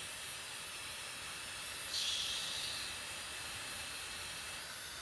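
A steady hiss runs throughout, with a short soft rustle of fabric about two seconds in as a Pomeranian puppy scrabbles at a cloth on a quilt.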